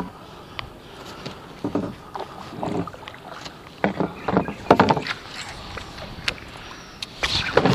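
Small boat on the water: scattered knocks and clatters against the hull and light water noise, the loudest cluster about four to five seconds in.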